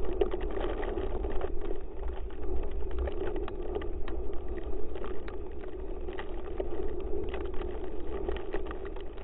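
Snowshoes crunching on fresh snow, many small irregular crunches over a steady muffled rumble.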